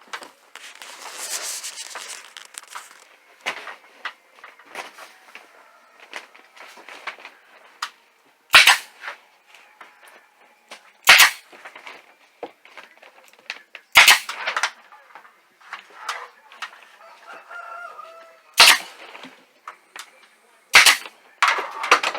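Five loud, sharp bangs a few seconds apart, with quieter knocking and rustling in between: fasteners being driven to tack wood strips and plastic sheeting up to a ceiling.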